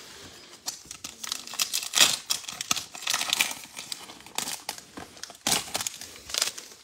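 Panini Prizm Draft Picks foil card-pack wrapper crinkling and tearing as it is ripped open by hand, an irregular run of sharp crackles, loudest about two seconds in and again past five seconds.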